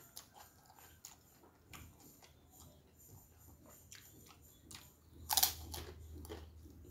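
Close-up mouth sounds of someone eating a fried kerupuk cracker: soft crunchy chewing with scattered small cracks, then a loud crisp bite into the cracker a little after five seconds in, followed by more crunchy chewing.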